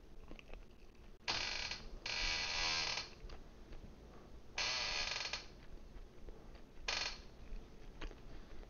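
Office chair creaking as the sitter shifts his weight: four creaks, two close together about a second in, one near the middle and a short one near the end.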